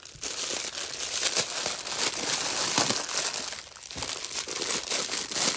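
Clear plastic bag crinkling and rustling as it is handled and emptied, with scattered clicks of plastic Beyblade tops knocking together.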